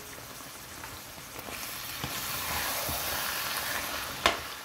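Spinach, meat and crab légume sizzling in a pan, the sizzle swelling in the middle. One sharp knock comes near the end.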